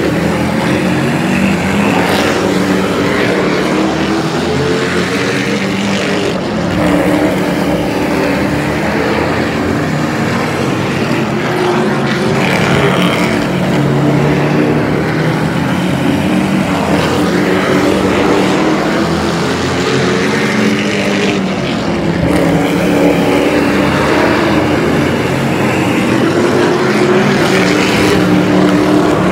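Engines of several super trucks racing around the oval and passing close by one after another, each truck's engine pitch rising and falling as it goes past.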